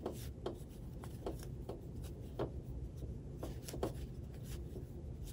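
Crochet hook working super bulky yarn through loops for a puff stitch: soft, repeated rubbing and scratching of yarn drawn over the hook, about two strokes a second.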